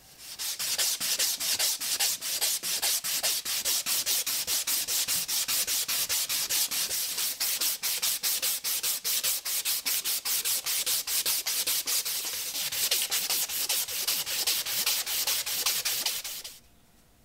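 Axe handle being hand-sanded with sandpaper in quick, even back-and-forth strokes, about four a second. The rasping starts half a second in and stops abruptly near the end.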